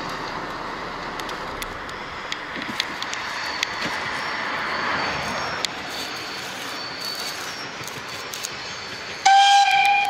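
Steam locomotive Ty42-107's whistle sounding about nine seconds in: one sudden, loud, steady note with overtones, over steady background noise.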